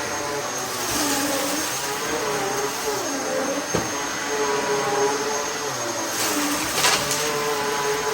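Dyson DC14 bagless upright vacuum cleaner running, its motor whine dipping and rising every second or two as the load on it changes, with a sharp click a little before the middle.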